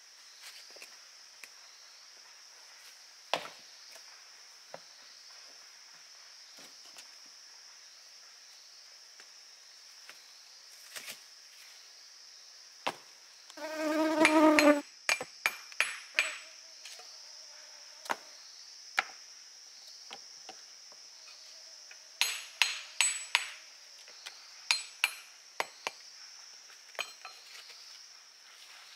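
A steady high insect drone fills the background while stones are knocked with a hammer: scattered single knocks, then quick clusters of sharp strikes in the second half. About halfway a brief, loud pitched squeal lasting about a second stands out.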